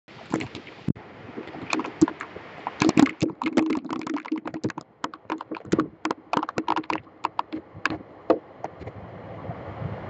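Heavy raindrops striking a Logitech C920 webcam, an irregular patter of sharp taps that is thickest in the middle, over a low wind rush.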